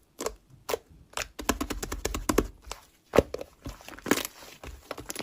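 Slime being squeezed and pressed by hand, giving irregular sticky clicks and crackles, with one sharper pop about three seconds in.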